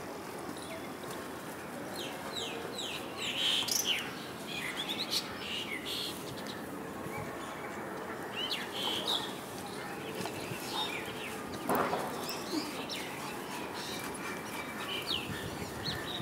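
Small birds chirping: short, quick, high calls in scattered clusters over a steady outdoor background. One brief louder sound comes about twelve seconds in.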